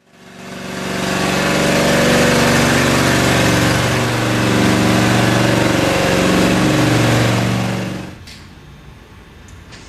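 Kanga mini loader's engine running steadily under a wide grinding hiss, with its pitch wavering a little. It fades in at the start and drops away sharply about eight seconds in to a much quieter engine sound.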